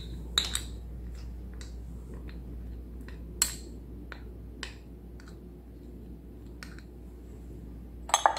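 A metal spoon clinking and tapping against a glass measuring cup while honey is spooned in and the sauce mixture is stirred: scattered single clinks, the sharpest about half a second in and at about three and a half seconds, with a quick cluster near the end.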